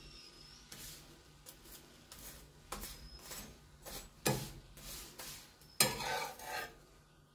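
A metal spatula scraping across a flat griddle pan in several short strokes as a thin crepe is lifted and turned. The longest and loudest scrape comes near the end.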